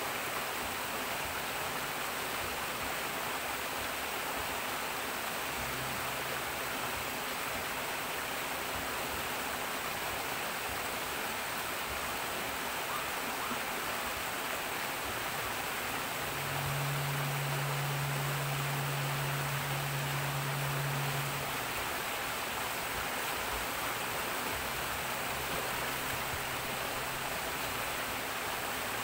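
Steady rush of water churning as it pours into and flows through a stone-lined pool. A low hum joins in for about five seconds past the middle, and more faintly twice elsewhere.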